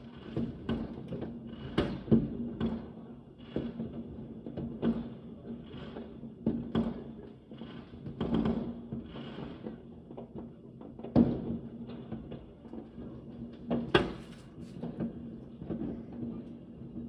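Many fireworks going off across a neighbourhood: bangs and crackling bursts at uneven intervals, each trailing a short echo. The two loudest bangs come about two-thirds and four-fifths of the way through.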